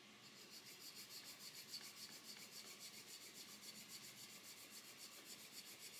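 A hand file rasping on a plastic model kit part in quick, even back-and-forth strokes, about five or six a second. The sound is faint, with most of it high up, as plastic is taken off the mating face to close a seam.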